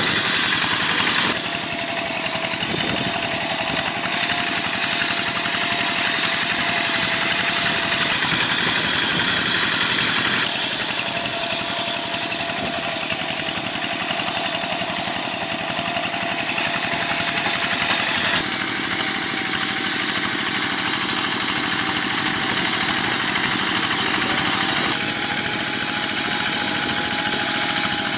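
Old Kubota diesel engine of a Quick G1000 hand tractor running steadily. Its sound changes abruptly three times, jumping slightly in pitch and tone each time.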